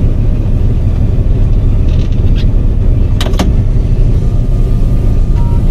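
Scania truck's diesel engine idling, heard inside the cab as a steady low rumble. A few short clicks come about two and three seconds in.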